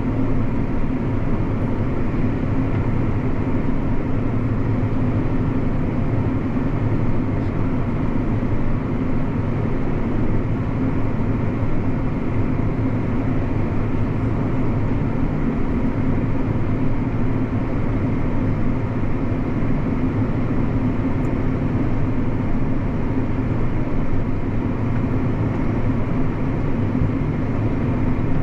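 Tractor engine running steadily under load, a constant low drone heard from inside the cab.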